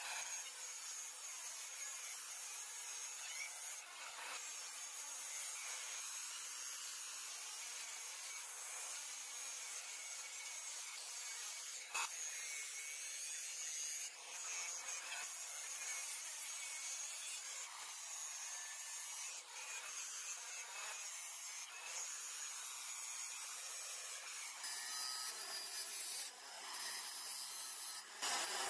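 Steel knife blank ground against a motor-driven grinding wheel: a steady hissing grind of metal on abrasive, broken briefly a few times as the blank is lifted and set back.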